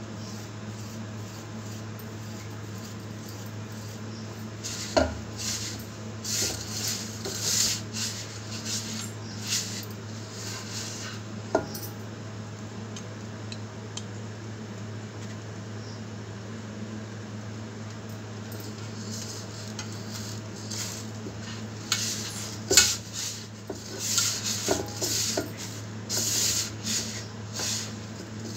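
Hands rubbing a crumbly flour-and-ghee mixture in a stainless steel bowl: gritty rustling scrapes against the steel in spells, starting about five seconds in, pausing midway and picking up again, with a few sharp clinks of the bowl. A steady low hum runs underneath.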